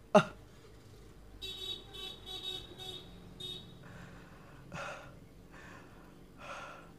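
A man lets out one short, sharp, falling cry or sob. A vehicle horn then toots five times in quick succession, quieter than the cry. Four heavy, breathy sobs or exhalations follow, spaced about a second apart.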